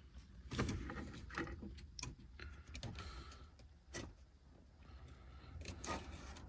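A handful of separate light clicks and knocks from plastic wiring connectors and cables being handled, over a faint low hum.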